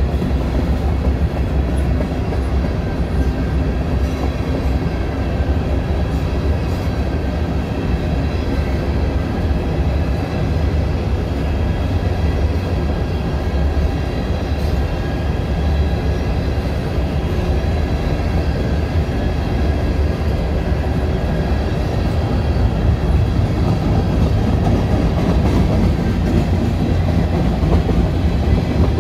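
Freight train of covered hopper cars rolling past: steady rumble and clatter of steel wheels on the rail, growing slightly louder near the end as the train gathers speed.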